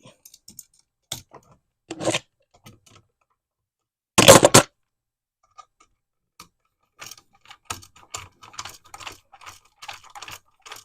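Small metallic clicks and scrapes of a wall receptacle and its wires being handled with hand tools as a wire is re-hooked onto a terminal screw. A single louder clatter comes about four seconds in, and the clicking grows busier near the end.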